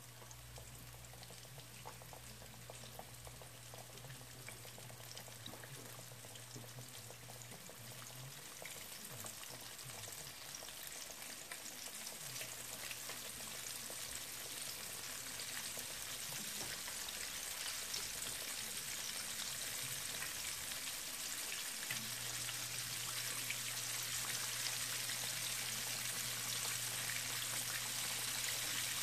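Floured chicken tenders deep-frying in hot oil in a stainless skillet: a steady sizzle dense with fine crackles, growing gradually louder as the frying picks up.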